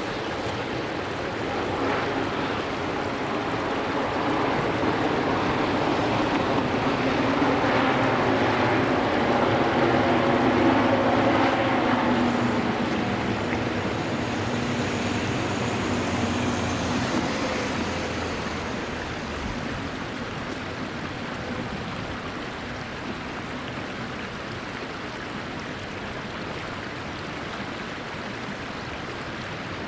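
Electric freight locomotive and a long rake of container wagons passing on the Tokaido Main Line. The locomotive's motors give several steady whining tones that swell to a peak and fade in the first half, followed by the even rolling of the wagons over the rails. The rush of a shallow stream runs underneath throughout.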